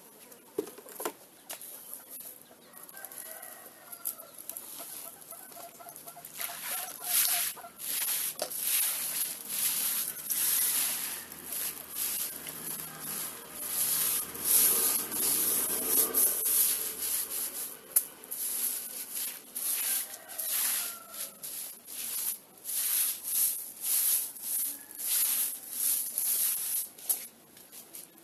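Short hand broom swishing and scraping over a wet mud floor in many quick, uneven strokes, spreading a cow-dung and water slurry to plaster the ground. Chickens cluck in the background.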